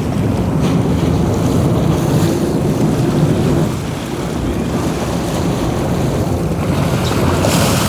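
Wind buffeting the microphone over the steady rush of a sportfishing boat running on open water, with water churning along the hull.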